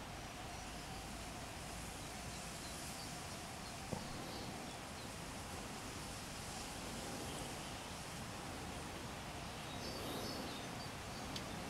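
Steady outdoor background hiss with faint, high bird chirps now and then, and a single sharp click about four seconds in.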